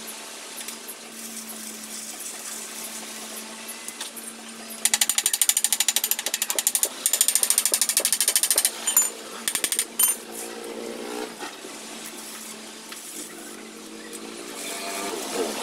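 Arc welder humming steadily while a steel frame is stick-welded, with two loud bursts of rapid, even clicking in the middle and a short stretch of welding arc near the end.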